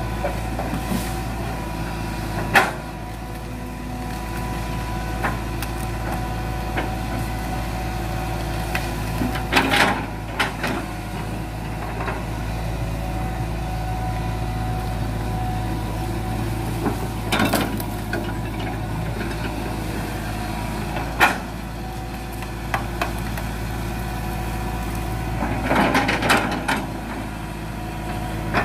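Hitachi crawler excavator's diesel engine running steadily as it pushes over rubber trees, with sharp knocks every several seconds and a longer clattering burst near the end.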